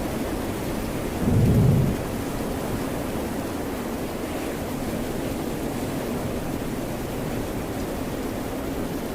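Steady rain mixed with ocean surf, with one short deep boom about a second and a half in.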